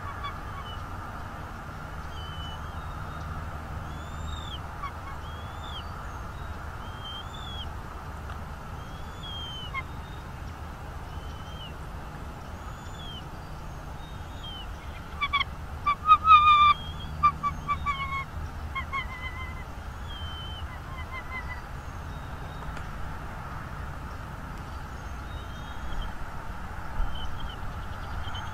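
Bald eagle calling: a loud series of high piping chirps about halfway through, coming quickly at first and then fading and slowing over several seconds. A songbird sings short repeated phrases throughout, over a steady low hum.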